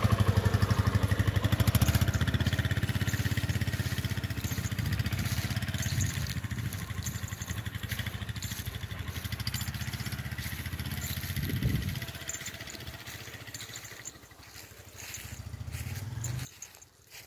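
Suzuki motorcycle engine running with a fast, even pulse as the bike pulls away in first gear, growing fainter as it rides off. A brief rise in engine pitch comes about two-thirds of the way through.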